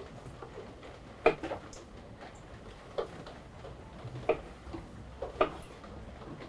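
Chef's knife slicing through a lemon on an end-grain wooden cutting board, the blade knocking sharply on the board with each cut, about five knocks spaced a second or so apart.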